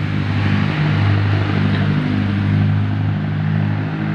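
An engine running steadily: a loud, low hum that swells slightly now and then.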